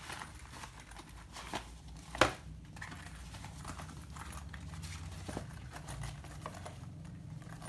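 Synthetic fabric and lining rustling and crinkling as a zippered pouch is handled and turned inside out, with one sharp click about two seconds in, over a faint low hum.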